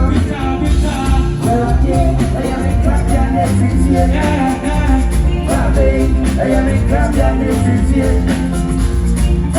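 Live band playing an upbeat groove with a strong bass line, drums and a melodic lead line.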